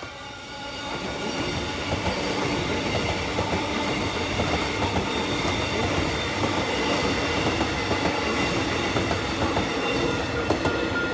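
Metro Melbourne X'Trapolis 100 electric multiple unit passing close by. Its steady wheel-on-rail running noise builds over the first second or two, with regular clacks as the wheels cross rail joints.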